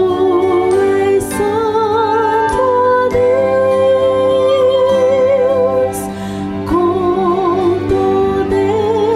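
A woman singing a slow Christmas hymn with vibrato over sustained instrumental accompaniment, holding one long note in the middle.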